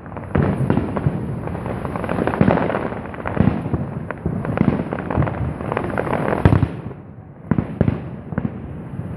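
Fireworks display: aerial shells bursting in a rapid, irregular series of bangs, easing off briefly about seven seconds in before the bangs pick up again.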